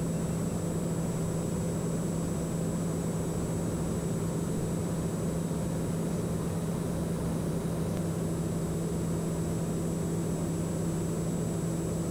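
Steady in-flight drone of a Socata TBM 910 single-engine turboprop: its engine and propeller make a constant low tone over an even hiss of airflow.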